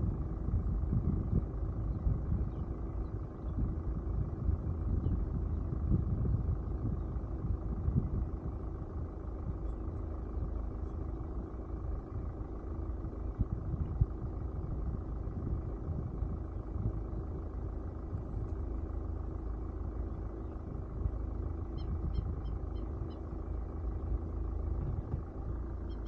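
Vehicle running with a steady low rumble and a faint hum as it moves slowly along a dirt road. Toward the end comes a short series of faint high chirps.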